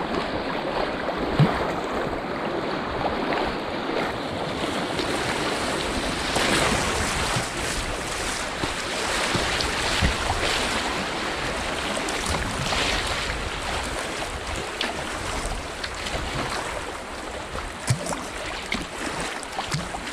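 Rushing water of river rapids around a kayak, with paddle splashes and a few sharp knocks, about a second and a half in, near the middle and near the end.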